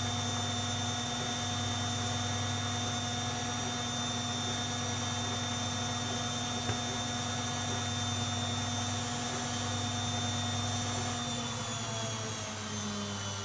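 Servis Quartz MK601 washing machine with its drum spinning at speed and a steady motor whine. About eleven seconds in, the whine starts falling in pitch as the spin slows down.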